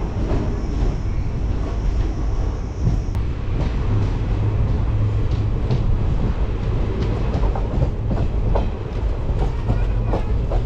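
Passenger express train running along the track: a steady low rumble of the coaches, with irregular clicks and clatter of wheels over rail joints that grow more frequent after about four seconds.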